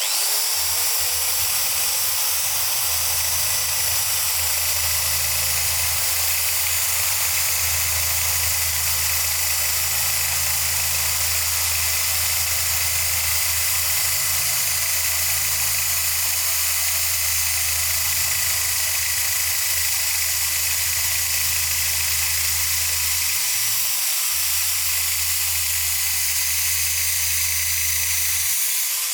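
A power tool starting up, its motor tone rising in the first second, then running steadily with a loud hiss.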